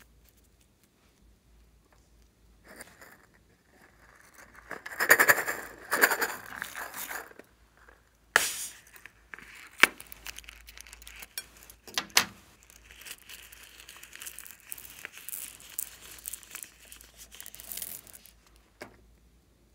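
Rubber balloons being handled and snipped open with scissors over a glass bowl of slime, with a rustly stretch and several sharp snips. This is followed by a long spell of fine pattering as small plastic pearl beads pour out onto the slime.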